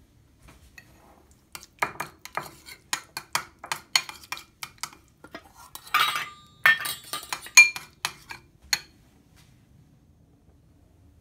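A metal spoon clinking and scraping against a ceramic bowl and stainless steel cat bowls clanking on a countertop: a run of sharp clinks over about seven seconds, loudest in a scraping clatter around the middle, with a brief metallic ring near the end.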